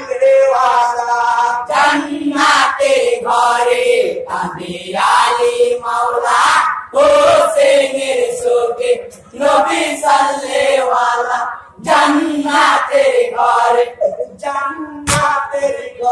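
A Bengali jari gan (marsiya) mourning song for Hussain sung by a troupe of men, voices chanting together in a steady rhythmic line. A few sharp knocks are heard near the end.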